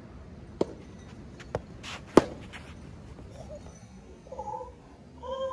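Three sharp pops of a soft tennis ball being hit on the court, spaced about a second apart, the third the loudest. Two short tonal calls follow near the end.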